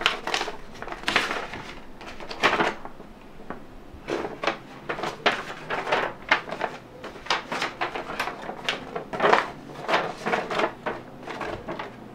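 Sheets of paper and envelopes rustling and crinkling as they are handled and sorted at a desk, in irregular quick crackles.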